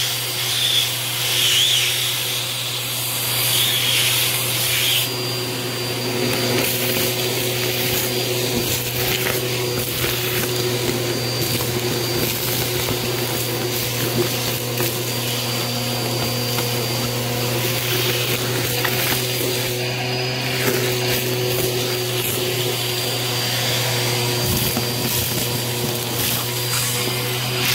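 Bissell Helix Turbo vacuum running steadily, its crevice tool sucking up gritty dirt, fluff and confetti, with frequent small crackles as debris rattles into the tool and hose.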